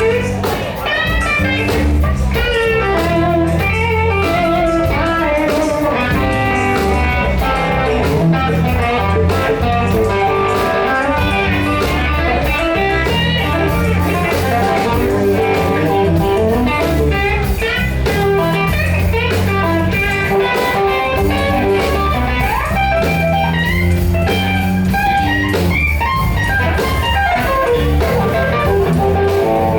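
Band playing blues, with an electric guitar carrying the lead line over a steady low accompaniment.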